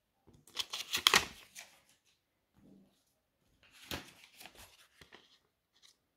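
Euro banknote rustling and crinkling as it is handled, in two bursts of crackling: the louder first one about a second in, the second around four seconds in.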